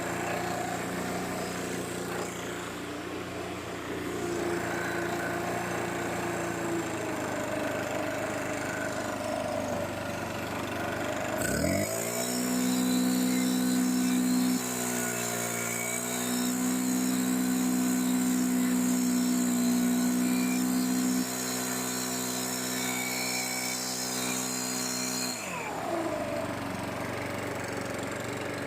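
STIHL BR600 backpack leaf blower's 4-MIX engine idling, then revved to full throttle about twelve seconds in with a rising whine. It holds full throttle with the rush of air, dips briefly once, and drops back to idle near the end. It is running on a freshly replaced carburetor with the throttle trigger's play taken up.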